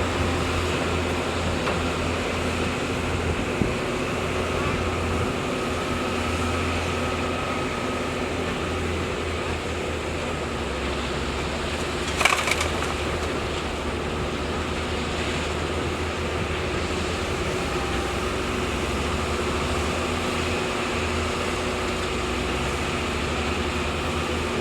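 Heavy diesel machinery engine running steadily with a low drone, with one sharp knock about halfway through.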